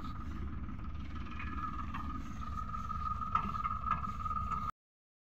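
A farm tractor's diesel engine running steadily as the tractor drives along a field track, with a few light rattles; the sound cuts off abruptly near the end.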